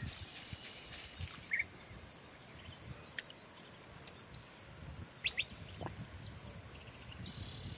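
Early-morning riverside ambience: a few short bird chirps over a steady high-pitched whine, with a low rumble of water and wind.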